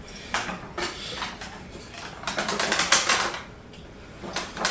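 Plastic knocks, clicks and rattles of a Dyson DC01 upright vacuum being handled, with a dense run of rapid clicks from about two to three and a half seconds in.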